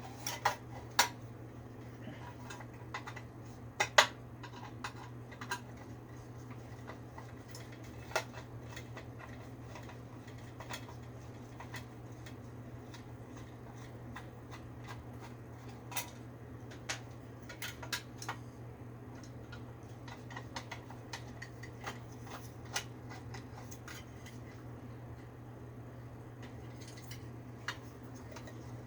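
Scattered light metallic clicks and clinks of hand tools handling a window air conditioner's metal parts during a repair, with a sharper knock about four seconds in, over a steady low hum.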